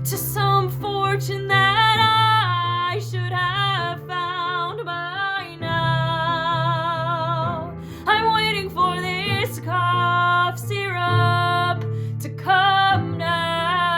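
A woman singing, holding long wavering notes with vibrato, over an acoustic guitar.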